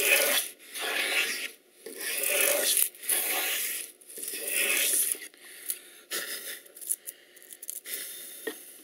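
Wooden grooving plane cutting a groove along the edge of a board: about five quick strokes, each a rasping swish of the blade lifting a shaving. These give way to lighter scrapes and taps near the end.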